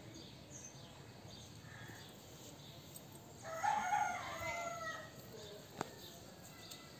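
A rooster crowing once, about three and a half seconds in, a call of about two seconds with a rising then falling pitch. A single sharp click follows shortly after.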